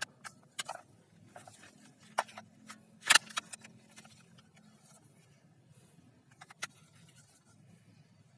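A few light clicks and knocks of handling, the loudest about three seconds in, over a faint steady low hum.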